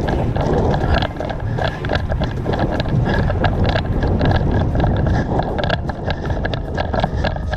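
Rumble and buffeting on a body-worn camera's microphone as the player moves, with many irregular sharp clicks and knocks.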